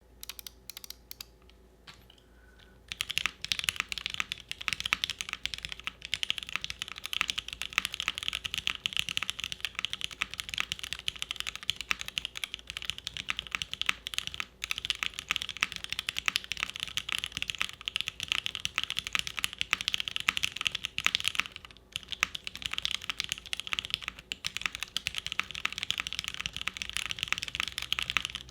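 Custom mechanical keyboard typed on quickly and continuously: lubed SP-Star Meteor White linear switches on a full POM plate under GMK keycaps, a clacky switch that the uploader finds balanced by the plate but lacking a full sound. A few scattered keystrokes open the sequence, then dense, steady typing runs on, with a brief pause about three-quarters of the way through.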